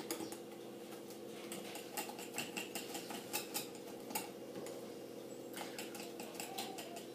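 Spatula stirring thick chocolate cake batter in a glass mixing bowl: irregular light clicks and scrapes of the spatula against the glass, over a steady low hum.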